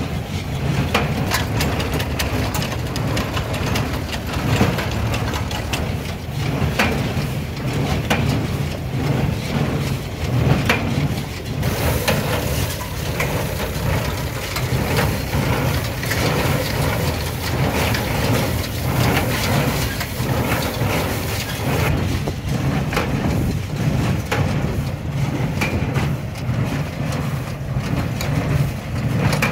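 CLAAS Markant 50 small square baler working behind a UTB DT445 tractor: the tractor's diesel engine runs steadily under a constant clatter of knocks and clicks from the baler's pickup and plunger as it gathers hay and presses bales.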